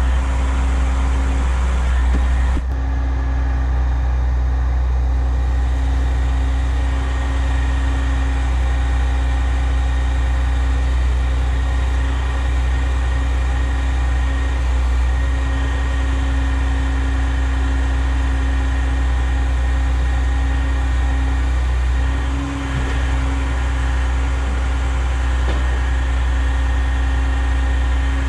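Truck diesel engine running steadily, a constant low drone, as it powers a truck-mounted grapple crane lifting rail.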